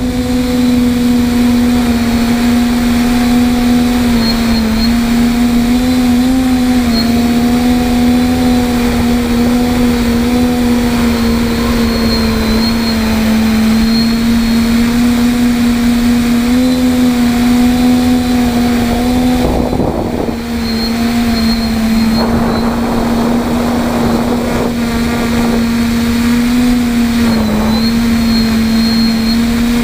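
TBS Discovery quadcopter's electric motors and propellers droning steadily, heard up close from on board, the pitch wavering slightly as the throttle changes. Wind buffets the microphone in a few gusts about two-thirds of the way through.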